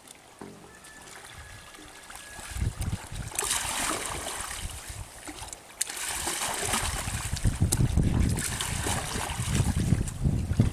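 Water splashing and sloshing as people wade and grope through shallow, muddy pond water, starting about two and a half seconds in and coming in uneven bursts with a low rumble underneath.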